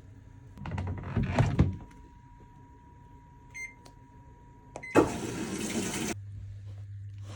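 A washing machine's control panel beeps twice, then a second of rushing noise begins sharply and gives way to the machine's steady low hum as it starts a cycle. A short noisy clatter comes about a second in.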